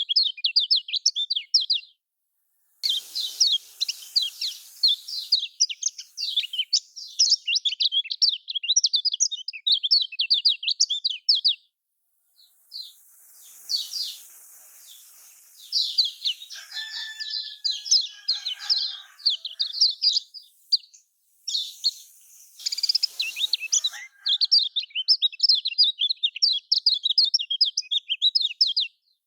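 Kecial kuning, a Lombok white-eye, singing a rapid, high twittering song in long runs of quick chirps, broken by short pauses.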